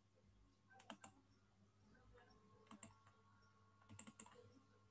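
Near silence with a few faint computer clicks: a pair about a second in, another pair near three seconds, and a small cluster near four seconds.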